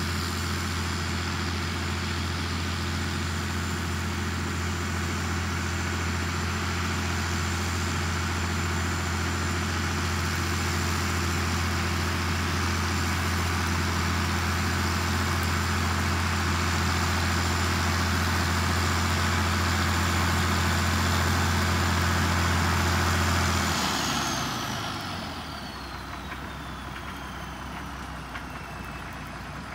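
Farmall 1066 tractor's turbocharged six-cylinder diesel running steadily under load while mowing, with a high whine over the engine sound. About 24 seconds in the engine drops back and goes quieter, and the high whine glides down over several seconds as it winds down.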